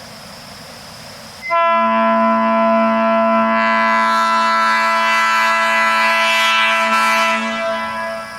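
Nathan AirChime P3 train horn with low-octave P0, P1 and P2 bells and double-diaphragm power chambers, sounding one long blast of about six seconds that starts about a second and a half in and fades out near the end. It plays an A major chord of 220, 277 and 330 Hz, an octave below a regular P3, with the lowest bell dominant.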